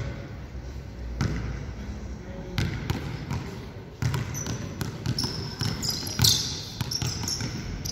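A basketball being dribbled on an indoor court, bouncing with separate thuds. From about halfway through, sneakers squeak sharply on the court floor as the player drives at the defender, loudest near the end.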